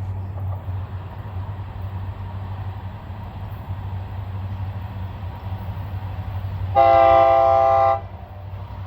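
Diesel locomotives of a Florida East Coast Railway train running with a steady low rumble. Near the end comes a single short air horn blast of about a second, several notes sounding together, which cuts off sharply.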